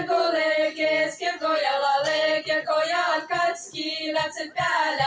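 Women's voices singing the quick, syllabic chorus of a Seto folk song.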